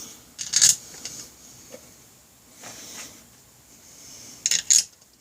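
A few light clicks and scrapes of small metal engine parts and fasteners being handled and fitted by hand, with short scraping sounds about half a second in and again near the end.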